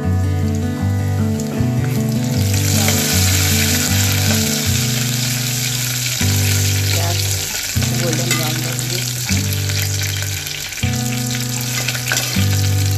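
Sliced onions and cumin seeds sizzling as they fry in hot oil in an aluminium pot, stirred with a metal spoon; the sizzle starts about two seconds in. Background guitar music plays underneath.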